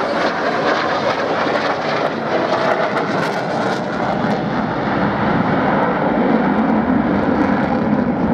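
Swiss Air Force F/A-18C Hornet fighter jet's twin turbofan engines, a loud, steady jet roar as it flies its display overhead. The roar grows a little louder and deeper about halfway through.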